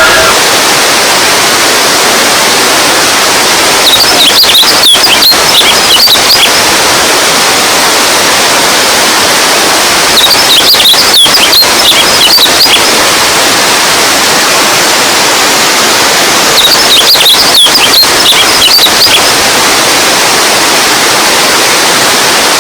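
Running water rushing steadily and loudly. Three short spells of high chirp-like sounds break in, about six to seven seconds apart.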